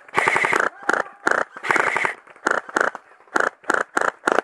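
Airsoft electric rifles firing on full auto in bursts of rapid shots. There are two longer bursts in the first two seconds, then a quick run of short bursts of a few shots each.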